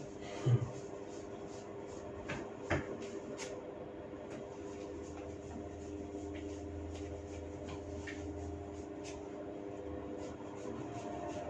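Hair cracking: tufts of hair tugged at the scalp give a sharp knock about half a second in, two louder clicks between two and three seconds in, then scattered faint clicks, over a steady hum.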